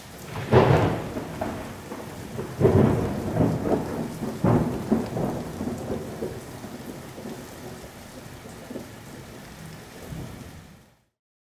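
Thunderstorm sound effect: claps of thunder rumbling over steady rain. The three loudest claps come about half a second, two and a half seconds and four and a half seconds in, with smaller rumbles after them, and the storm fades out near the end.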